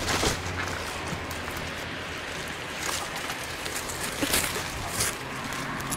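Rustling and a few light scrapes and clicks as a climber on a rope moves against branches, over a steady outdoor background hiss.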